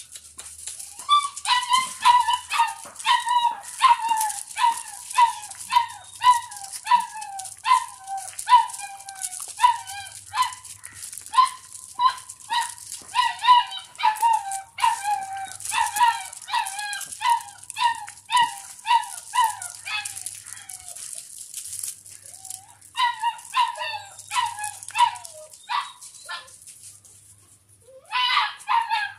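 Doberman puppy yelping over and over, short yelps at about two a second, with a short break about two-thirds of the way through and another near the end. A steady high hiss runs behind the yelps.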